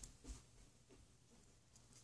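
Near silence: room tone, with one faint brief handling sound about a quarter second in.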